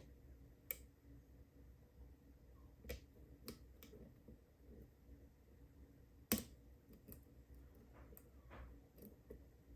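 Faint, scattered metallic clicks of a lock pick working the pins of a PACLOCK UCS-2A padlock cylinder, pins clicking as they set while the core sits in a false set. The sharpest click comes about six seconds in.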